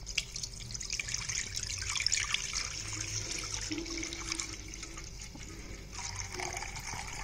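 About a litre of milk poured in a steady stream into a nonstick kadai, splashing as it fills the pan. The pouring sound cuts off suddenly at the end.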